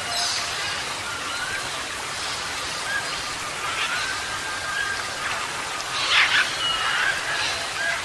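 Nature ambience: a steady hiss of water with birds calling over it in short rising whistles every second or two. A louder call stands out about six seconds in.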